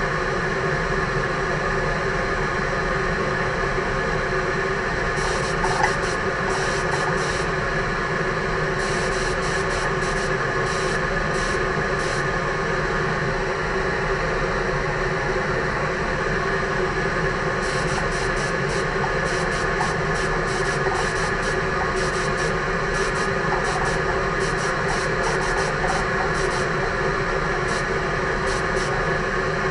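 Mini spray gun spraying epoxy primer in a run of short trigger pulls, each a brief hiss of air, over a steady machine hum with several constant tones. The trigger pulls come in two spells, one from about five to twelve seconds in and one from about eighteen seconds on.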